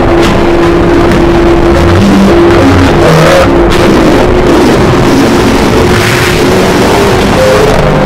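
Harsh, heavily distorted music: a song sample clipped into a dense wall of noise at full loudness, with a melody of held notes faintly showing through.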